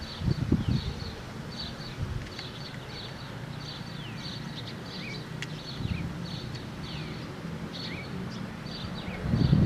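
Small birds chirping over and over: short high chirps and quick falling notes, about two a second. Wind rumbles on the microphone at the start and again near the end.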